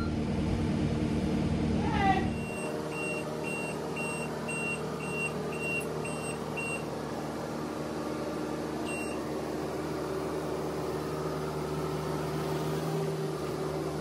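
Machine engine running steadily with a reversing alarm beeping about twice a second for several seconds, plus a brief falling squeak about two seconds in.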